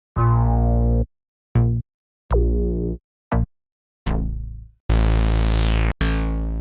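Synthwave drum-machine and synth one-shot samples auditioned one after another, about seven separate hits with short silences between them. Most are pitched and ring briefly; the one about five seconds in is noisier, with a sweep falling in pitch.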